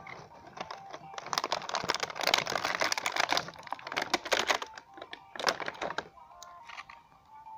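Plastic toy packaging crinkling and crackling as it is handled: a dense run of crackle through the middle, then a short last burst about five and a half seconds in. A simple electronic tune is heard faintly at the start and returns near the end.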